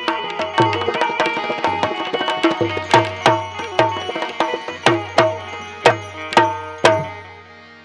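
Tabla drumming in a steady rhythm, mixing sharp ringing strokes with deep bass strokes, over sustained melody notes. The drumming stops about a second before the end and the music sinks away.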